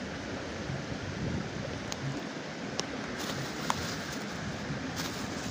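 A clear plastic bag being handled, crinkling in short crisp crackles from a little past halfway, over a steady rushing background noise, with a couple of small clicks.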